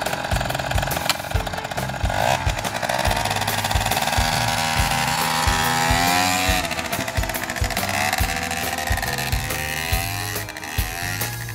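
Small engine of a motorised monowheel running as it is ridden around, its pitch rising and falling with the throttle.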